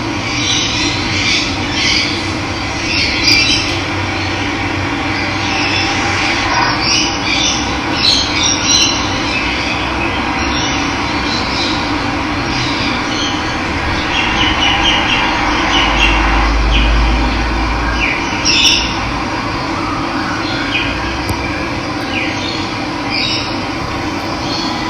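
Steady rush of running water, with birds chirping and calling over it many times throughout.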